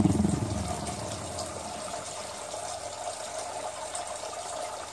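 Steady rushing background noise with a faint hum. A low handling rumble dies away over the first second.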